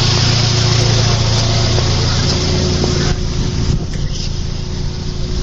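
Car engine idling close by with a steady low hum. A hiss over it drops away about three seconds in.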